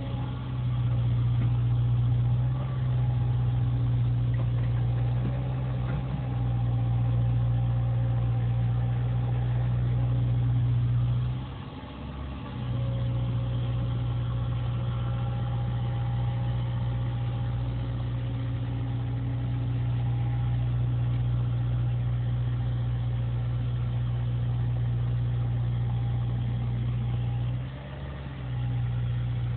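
CAT 305 mini excavator's diesel engine running steadily with a strong low hum, dropping briefly twice, about twelve seconds in and near the end.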